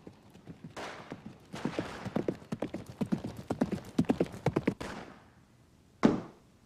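Horse hooves clip-clopping in quick, irregular beats, then fading away after about five seconds. About six seconds in comes a single loud, sharp crack.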